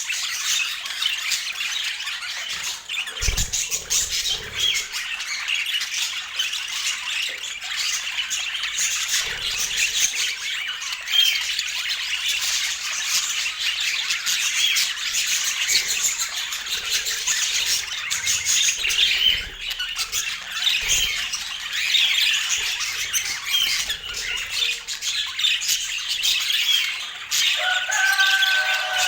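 Budgies chattering, a dense, continuous stream of short high chirps and squawks, with a few low bumps and, near the end, one longer, clearer call that falls away at its end.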